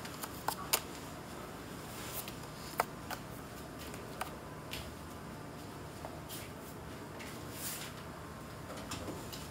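Room tone with scattered light clicks and rustles of small handling noises, about ten of them, irregularly spaced, over a steady low hiss.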